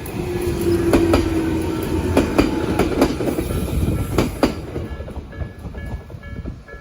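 A Jōmō Electric Railway train passing close over a level crossing. Its wheels clack over the rail joints in pairs for about four seconds, over a steady hum at first, then the train fades away. A level-crossing warning bell rings in a regular repeating pattern behind it and is heard again near the end.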